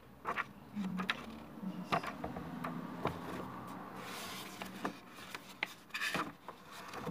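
Pages of a hardback book being turned by hand: paper rustling and flicking, with a swish about four seconds in and a few sharper flicks near the end.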